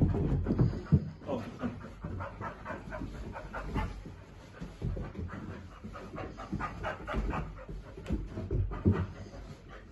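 Chow Chow dog panting in quick, repeated breaths, with a few soft thumps of its paws on carpeted stairs in the first second.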